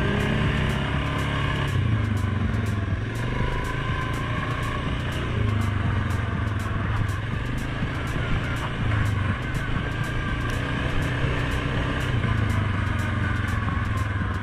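Suzuki KingQuad 750 ATV's single-cylinder engine running under way on a dirt trail, its pitch rising and falling every few seconds as the throttle changes.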